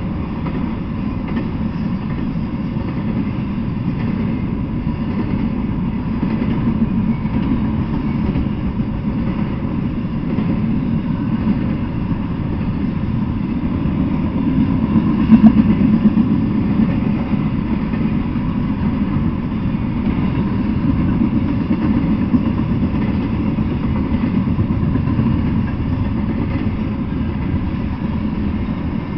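Intermodal freight train rolling past, a steady low rumble of wheels on the rails, briefly louder about halfway through.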